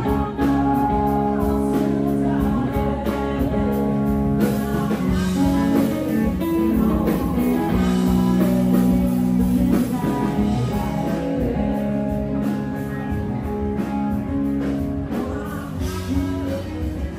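Live band music: guitar with a singer, played steadily throughout.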